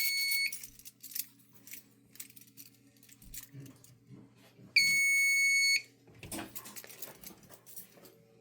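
System Sensor fire alarm horns sounding a steady high tone that cuts off about half a second in, then a second blast of about one second a few seconds later. Faint clicks and rattles in between.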